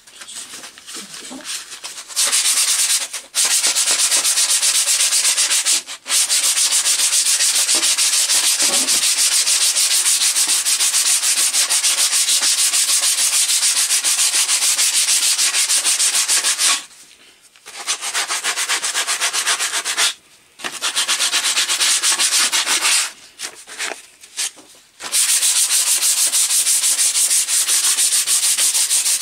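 Sandpaper rubbing down a hickory axe handle by hand: a loud, continuous rasp of rapid back-and-forth strokes that starts about two seconds in, with a few brief pauses in the second half. This is the rub-down that prepares the wood for linseed oil.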